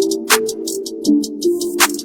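Background music with a steady electronic beat: fast ticking about six times a second, a sharp hit twice about a second and a half apart, and a repeating low chord pattern.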